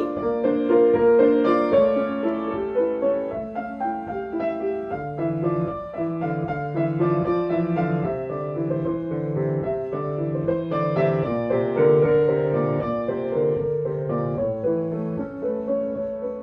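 Piano music: a gentle melody moving in steady notes, with a lower bass line joining about five seconds in.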